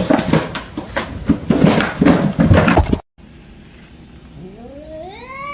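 A jumble of rapid knocks and scuffling noise for about three seconds, then after a cut a cat's long drawn-out yowl that starts low and climbs steadily in pitch.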